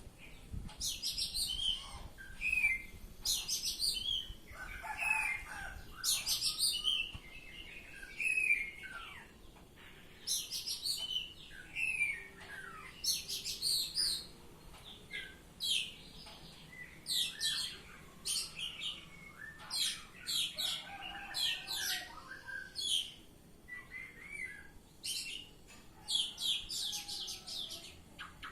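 Oriental magpie-robin singing its full, varied song: loud whistled phrases with quick falling sweeps, one every second or two with short pauses between.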